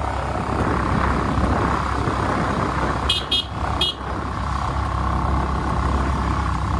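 Steady running of a vehicle on the road, with three short high-pitched horn toots about three seconds in.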